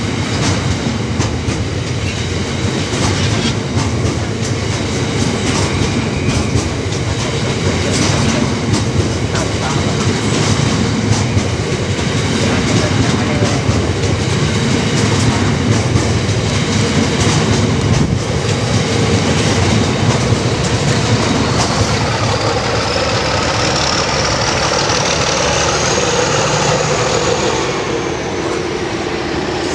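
Long freight train of covered hopper wagons running through at speed behind a Class 66, wheels clattering over the rail joints in a steady roar. In the last several seconds, as the wagons clear, a high whine rises and then falls.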